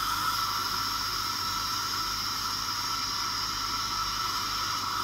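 Laser beam welding of a thin steel sheet, a bead-on-plate weld throwing sparks, heard as a steady, even hiss with a constant high tone running through it.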